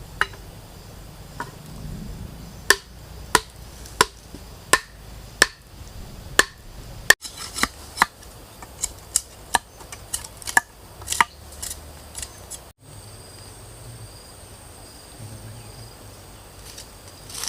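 Repeated sharp chopping strikes on wood, about one and a half a second, that stop near the end of the first two-thirds. After a sudden break, forest insects keep up a steady high chirring.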